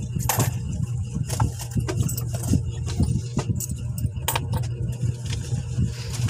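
A steady low mechanical hum, like an engine running, with scattered short clicks and clinks over it.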